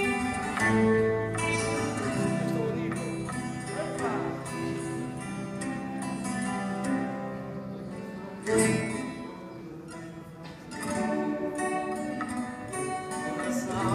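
Live music: a plucked acoustic guitar over held, sustained chords, with one sudden loud hit about eight seconds in.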